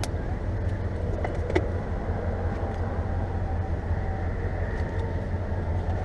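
Car engine idling, heard from inside the cabin: a steady low hum, with a couple of faint clicks about a second and a half in.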